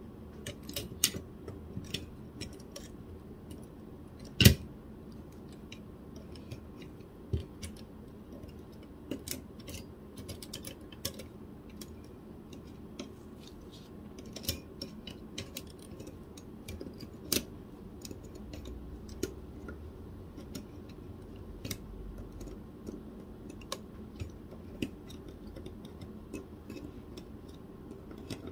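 Scattered small clicks and ticks of needle-nose pliers on the plastic and metal parts around a laser printer's fuser roller bushing as they are worked into place, with one sharper knock about four and a half seconds in, over a low steady hum.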